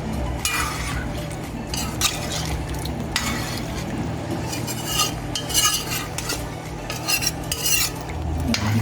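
A spoon stirring and scraping around a pot of curry stewed chicken, with about eight separate scrapes at uneven intervals over a steady low background noise.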